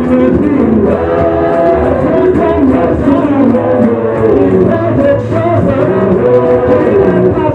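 A group singing a song in several voices through microphones, over instrumental accompaniment.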